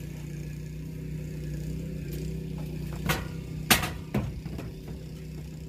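Aluminium loading ramp being set on a pickup truck's tailgate, knocking against it three times in the second half. A steady low hum runs underneath.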